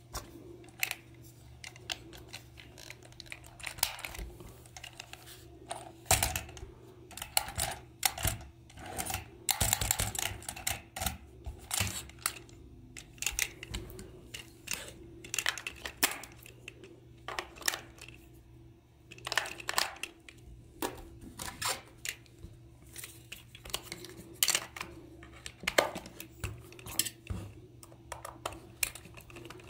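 Hard plastic parts of a toy being handled, clicked and fitted together, with irregular small clicks and knocks and a faint steady hum underneath.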